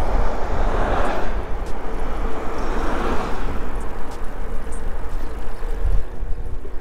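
Wind buffeting the microphone of a moving bicycle, with a steady low rumble, as two cars pass, one about a second in and another about three seconds in.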